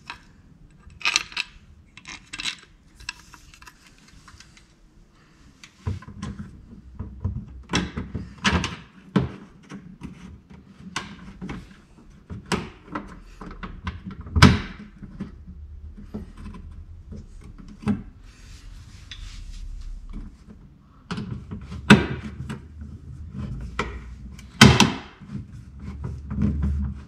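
Handling noises from fitting a carbon fiber mud guard to a car's wheel arch: irregular clicks, taps and rubbing of the panel and its spacers and screws, with a few sharper knocks.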